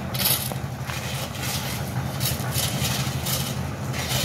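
An engine runs steadily in the background while shovels scrape into a pile of crushed-stone gravel several times.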